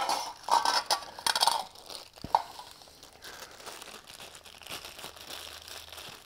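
Packaging around a power adapter crinkling and rustling as it is unwrapped: several loud bursts in the first second and a half, a sharp click a little after two seconds, then softer rustling.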